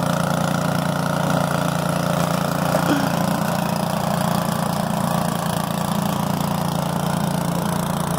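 Troy-Bilt two-stage snow blower's small gasoline engine running steadily under load as it throws snow.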